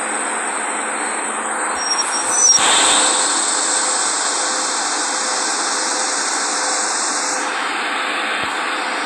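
Automatic subway train running with a steady rushing noise and a faint steady whine, swelling louder for a moment about two and a half seconds in.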